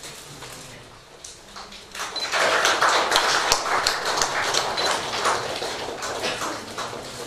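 Audience applause: many hands clapping, starting about two seconds in and gradually tapering off.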